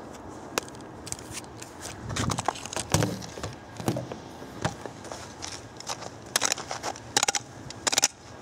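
Wet snow and ice crunching and crackling in irregular clicks and short scrapes, the crackling getting denser near the end.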